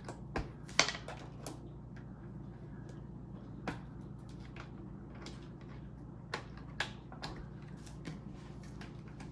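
Scattered clicks and taps of hard plastic being handled, as small parts, most likely the side brushes, are pressed onto the underside of a robot vacuum. The sharpest click comes just under a second in, and the rest are spread irregularly.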